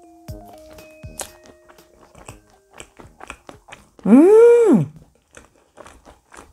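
Close-up eating sounds: a spoon clicking and a mouth chewing a dense, creamy lemon pudding, with small clicks all through, over soft background music. About four seconds in, a loud pitched sound swoops up and back down for under a second.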